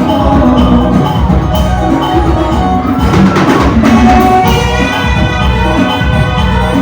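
Loud band music: sustained melody notes over a steady drum beat, with a cymbal-like wash about three seconds in.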